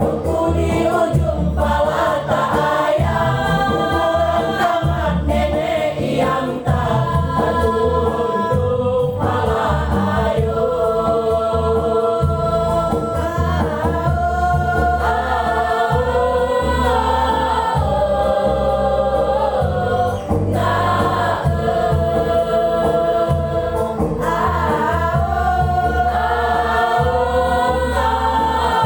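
Choir singing together in sustained, changing chords over an instrumental accompaniment with a steady low beat.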